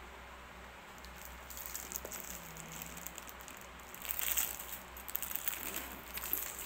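Clear plastic wrapping on a new handbag's handles crinkling and rustling as the bag is handled, loudest about four seconds in.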